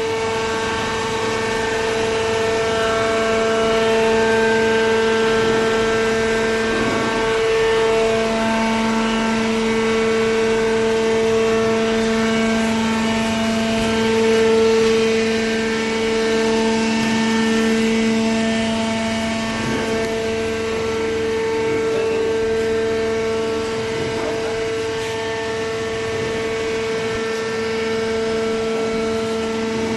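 Horizontal waste paper baler running, a steady machine drone with a held whine.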